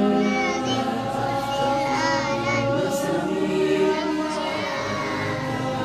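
Background music with voices singing in chorus, held notes and a wavering vocal line.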